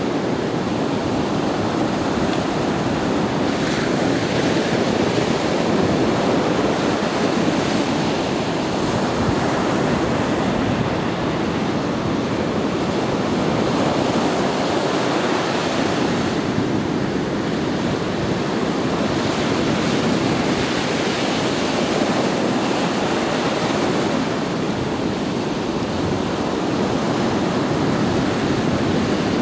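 Gentle surf: small waves breaking and washing up the sand, a steady rushing that swells and eases every few seconds.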